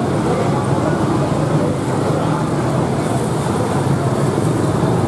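Steady street ambience: a continuous traffic-like rumble and hum with no distinct events.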